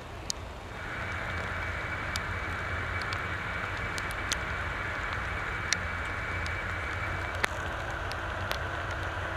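Aircraft turbine engines running with a steady high whine that comes in about a second in, over a low rumble; a thin higher tone in the whine stops near the end. Scattered sharp ticks sound throughout.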